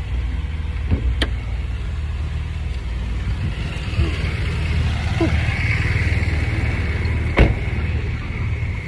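Steady low vehicle rumble, with a hiss that swells and fades over a few seconds in the middle. Two sharp knocks cut through, one about a second in and a louder one near the end.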